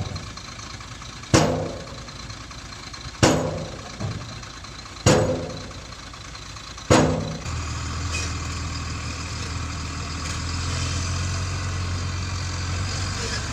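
Four sharp ringing strikes about two seconds apart, then a steady low hum that starts just after the last strike and carries on.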